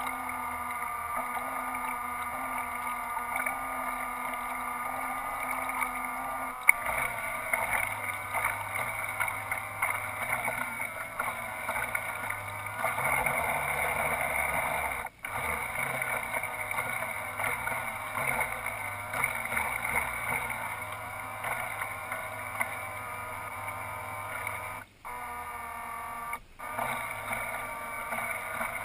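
Remote-control model boat's drive motors and propellers running steadily under way, a hum with several fixed pitches picked up by the camera on its deck, mixed with water sloshing against the hull. The hum shifts in level and cuts out briefly a few times in the second half.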